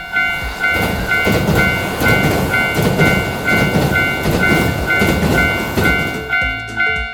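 Japanese railroad crossing alarm ringing its 'kan-kan' bell about twice a second while a train passes. The train's rumble and rail clatter start just after the alarm begins and die away about six seconds in.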